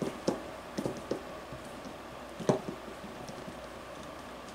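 A few light clicks and taps of a small hand tool against the metal fitting on top of a model airplane engine as the vent-line nipple is worked loose, scattered through the first half, with the loudest about two and a half seconds in.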